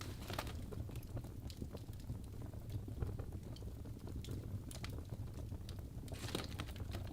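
Wood fire burning in a fireplace: a steady low rumble of the flames with frequent irregular crackles and pops from the burning logs, a brief cluster of louder pops about six seconds in.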